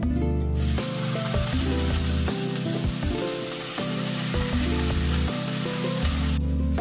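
Dried anchovies sizzling in a hot oiled frying pan as soy sauce hits the pan and is stirred in with a wooden spoon. The sizzle starts about half a second in and cuts off shortly before the end.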